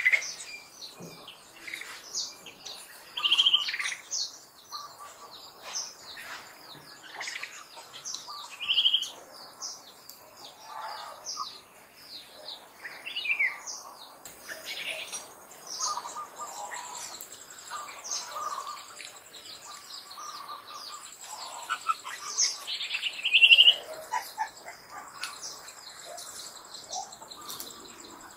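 Birds chirping and twittering throughout, short high calls overlapping one another, with a few louder high calls standing out. A faint steady high-pitched buzz runs under them in the second half.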